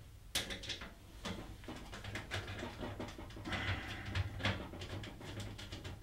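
Phillips screwdriver working the screws out of the fan mount in a computer case's top panel: small irregular clicks and scrapes of metal on metal.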